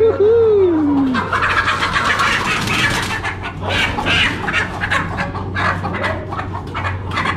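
Live chickens: one drawn-out squawk that falls in pitch near the start, then a dense, noisy flurry of clucking and squawking.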